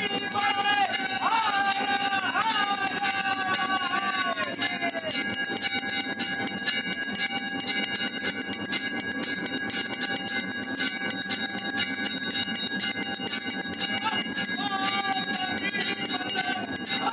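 Temple bells ringing without pause during an aarti, a dense metallic clangour. A voice sings over them for the first few seconds and again near the end.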